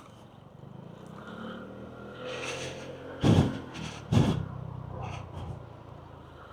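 Lexmoto Aura 125 scooter's small single-cylinder engine running on the move, a steady low hum that swells slightly about two seconds in. Two short loud rushes, a second apart, come just past the middle.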